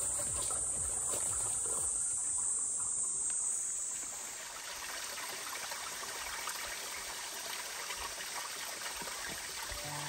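Water trickling: spring water moving in a spring-fed basin, then a shallow mountain stream running over rocks. For the first four seconds or so, steady high-pitched insect chirring sounds over the water and then stops.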